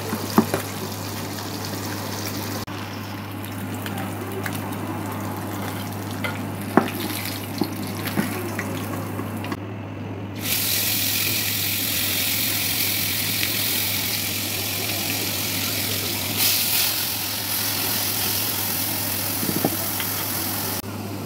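Oil sizzling as fish pieces shallow-fry in a nonstick pan, with a few sharp clicks of a slotted spatula against the pan, over a steady low hum. After a break about halfway, the sizzling turns louder and hissier as onion paste fries in the oil.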